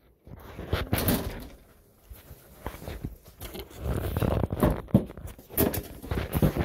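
Irregular knocks, bumps and rustling of a phone being handled and carried about close to the microphone.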